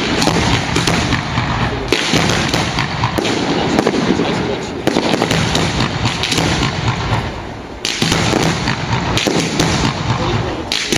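Fireworks going off in a dense, continuous barrage of crackling and bangs, easing briefly and then surging again just before eight seconds in.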